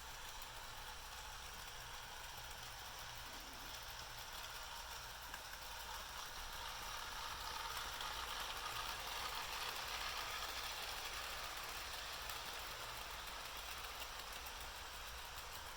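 Model diesel locomotive running on track, a faint steady whir that grows louder from about six seconds in, peaks in the middle and fades again as it passes.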